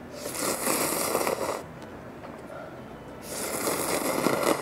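A person slurping instant ramyeon noodles with chopsticks from a paper cup, in two long slurps: one at the start, the other from about three seconds in.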